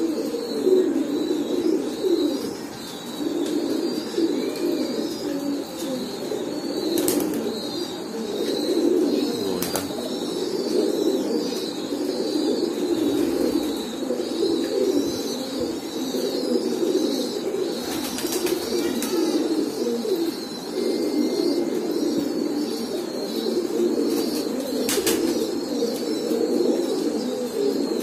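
A flock of domestic pigeons cooing together without a break, a dense low murmur of many overlapping coos. A few brief, sharp wing flaps stand out here and there.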